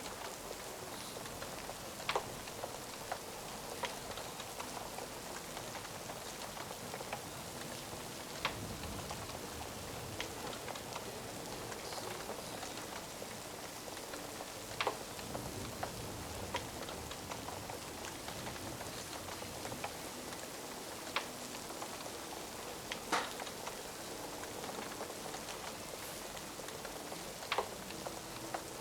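Steady rain falling, with a crackling fire giving a sharp pop every few seconds at irregular intervals.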